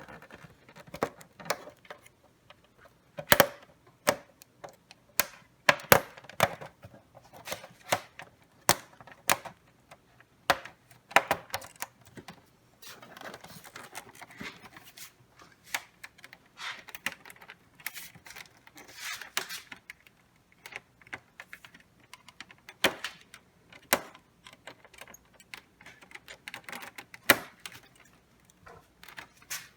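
Plastic clicks, snaps and short scrapes as a pry tool works around the rear cover of a Samsung DP700A7K all-in-one computer, releasing its clips. The clicks come irregularly, often one or two a second, with a few brief scraping stretches.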